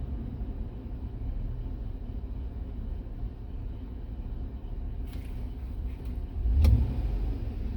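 Chevrolet Avalanche's 5.3-litre V8 idling with a steady low rumble, the engine setting a P0300 random-misfire code. Near the end the throttle is pressed and the engine note swells briefly, with a sharp click.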